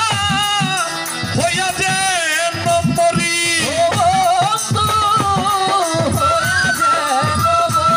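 Live Bengali baul folk song: a male voice sings a wavering melody over a steady hand-drum beat and shaken rattle-type percussion.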